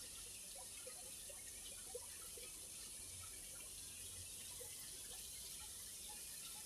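Faint water trickling, with many small drips scattered through it.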